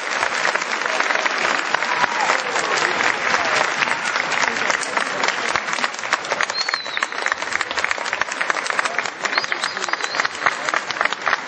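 Audience applauding: dense, steady hand-clapping that eases off slightly near the end.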